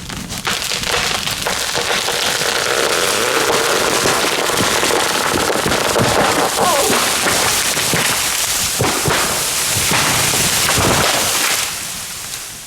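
Pine tree going over after the felling cut: a long run of sharp cracks and snaps, with wood splitting and limbs crashing through the canopy, that dies away near the end.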